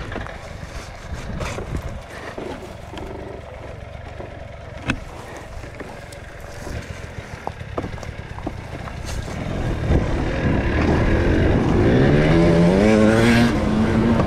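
GasGas enduro dirt-bike engine running low and uneven, with the bike rattling and scraping over the forest dirt track. From about ten seconds in it revs up in a rising pitch, growing loudest near the end.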